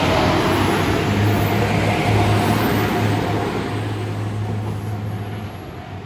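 JR Shikoku 2700 series diesel limited-express train passing and moving away, its engines droning low and fading steadily. A level-crossing warning bell rings faintly over it.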